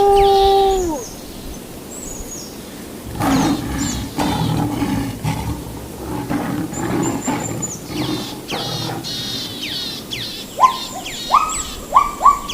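A mix of wild animal calls. A long howl trails off and drops in pitch about a second in. Then a low growling rumble lasts several seconds over a background of quick bird chirps, and near the end a run of loud, short, rising bird calls repeats.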